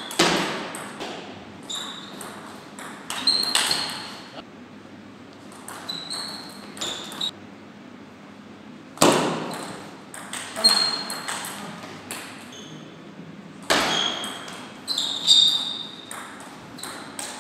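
Table tennis rallies: a celluloid ball clicking off rubber-faced paddles and bouncing on a Tibhar table in quick runs of sharp pings that echo around the gym hall. There is a short lull in the middle, then a livelier rally with several louder hits.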